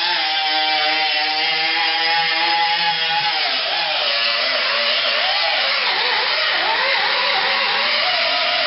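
A power tool's motor running with a steady whine, then its pitch dipping and wavering irregularly from about three and a half seconds in.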